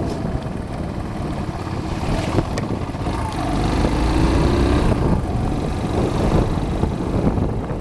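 Suzuki Djebel 200 motorcycle's single-cylinder four-stroke engine running on the move, with wind rushing over the microphone.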